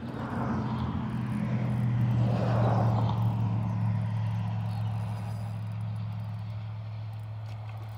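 A motor vehicle's engine hum, a steady low drone that swells to its loudest about two to three seconds in and then slowly fades, as of a vehicle passing by.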